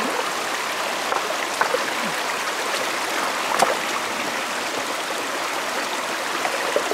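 Shallow stream rushing steadily over rocks, with a few small splashes and knocks from hands and a woven basket trap worked in the water. The sharpest splash comes about three and a half seconds in.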